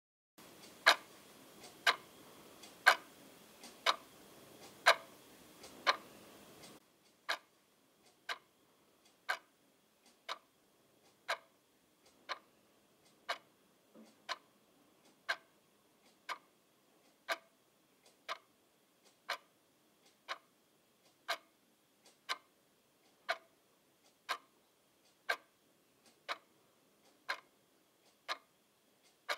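Clock ticking steadily, about one tick a second. For the first seven seconds the ticks are louder over a faint hiss, then they carry on more softly.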